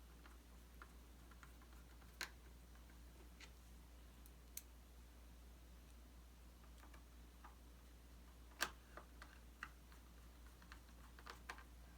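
Faint, scattered clicks and taps of a small screwdriver and screws on a laptop's plastic bottom cover as the cover is screwed back on, one click louder than the rest about two-thirds of the way through; otherwise near silence with a low hum.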